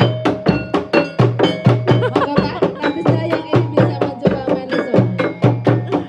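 Gejog lesung: long wooden pestles pounding a hollow wooden rice trough in a fast, steady rhythm of knocks. From about two seconds in, a woman's voice sings over it through a microphone.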